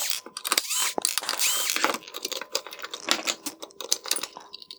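A run of clicks and small knocks from a screwdriver backing out the T20 Torx screws that hold an LED headlight projector to its bracket.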